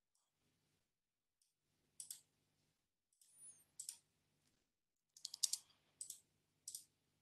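Scattered computer keyboard key taps and mouse clicks with silent gaps between them. The loudest is a quick run of several taps a little after five seconds in.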